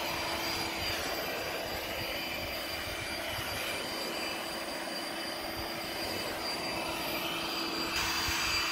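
Milwaukee cordless blower running steadily, a rushing of air with a constant high whine, as it blows rinse water out of an RV rooftop air conditioner's condenser coils.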